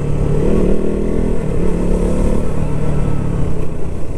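KTM motorcycle engine running at low, fairly even revs as the bike rolls down a road, with small rises and falls in pitch.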